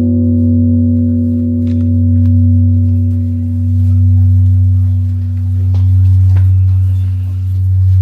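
Large Korean bronze temple bell humming after a strike: a deep low tone that swells and fades about every two seconds, while its higher tones slowly die away.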